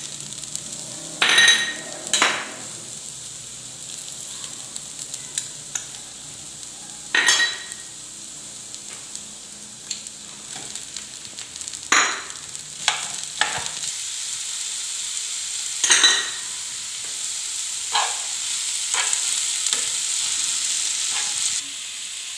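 Diced potatoes and onion frying in oil in a non-stick pan, a steady sizzle, with a utensil knocking and scraping against the pan as chopped parsley, spices and ground meat are stirred in. The sizzle grows louder in the latter part and stops abruptly near the end.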